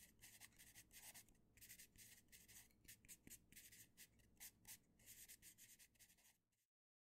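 Faint scratching of a pencil writing and sketching on paper, in short irregular strokes, cutting off abruptly near the end.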